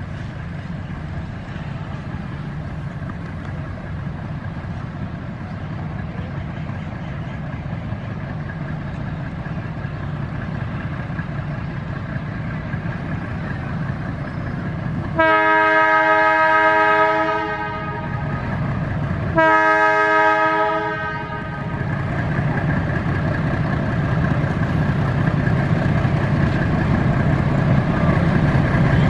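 Metre-gauge train with a steady low rumble, its horn sounding two blasts about halfway through, each about two seconds long.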